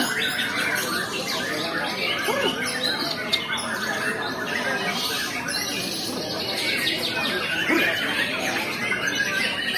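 A chorus of many caged songbirds singing and calling at once: dense, overlapping chirps, trills and whistles with no pause.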